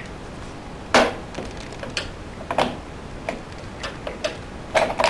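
Irregular sharp clicks and knocks of hard plastic parts being handled at the bottom of a washing machine during a drain-filter check, about eight or nine in all, the loudest about a second in and near the end.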